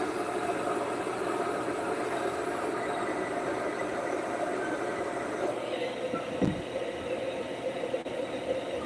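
Handheld hair dryer running steadily, blowing air, with a brief low thump about six and a half seconds in.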